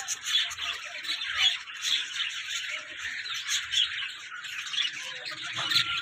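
Many caged parrots in an aviary, cockatiels and budgerigars among them, chattering and squawking together: a dense, continuous mix of short calls, with a brief steady whistled note near the end.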